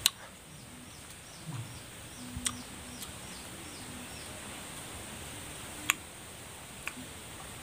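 A small bird gives a quick run of short, high chirps, each falling in pitch, which stops a little past halfway. A few sharp clicks cut through, the loudest right at the start and another about six seconds in.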